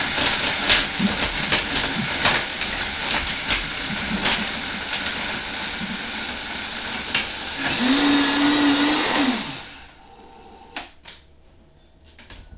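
Vitamix Super 5000 blender crushing ice, a loud steady run with many sharp knocks of ice against the container. About eight seconds in it settles into a smoother, steady hum as the ice turns to snow, then the motor is switched off and winds down. A couple of faint clicks follow.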